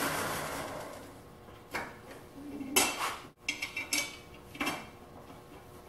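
Craftex 18x47 wood lathe's motor and spindle running down after being switched off, the steady whir fading out over about a second and a half. Then a handful of short metallic clicks and clinks as the headstock is handled.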